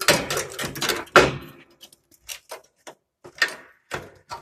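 Rusted sheet metal from the bottom of a truck door rattling and clanking as it is worked by hand to break a piece off. There is a dense clatter for about the first second and a half, then a run of single sharp knocks at uneven gaps.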